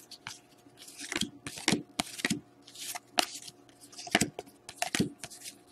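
Glossy hockey trading cards being slid off a stack one at a time by thumb: a quick, irregular run of short papery swishes and flicks, about two a second.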